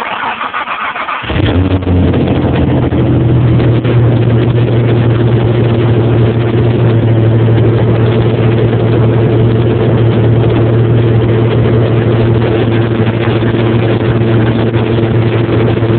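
Ford Ranger's 3.0L V6 cranked by the starter for about a second, then catching and idling steadily through a new Flowmaster Delta Force 40 muffler and Magnaflow high-flow catalytic converter, which replace the dual cats.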